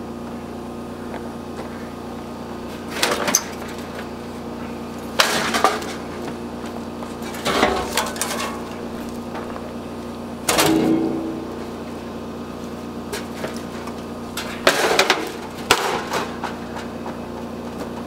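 Sheet-metal dryer parts being handled and set down: several separate short clanks and rattles of metal, over a steady machine hum.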